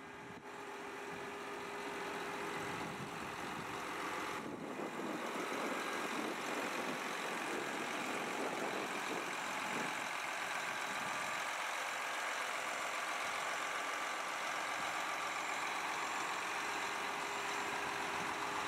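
John Deere 8360RT track tractor's six-cylinder diesel engine idling steadily. The sound fades in over the first couple of seconds, then holds even.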